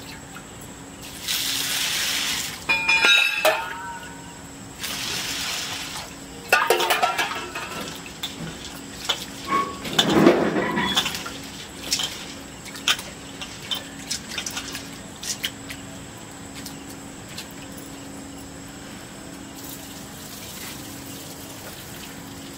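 Water poured from a cup into a steel bowl of split lentils, twice, and the lentils swished and rubbed by hand in the water to wash them, with clinks of steel utensils.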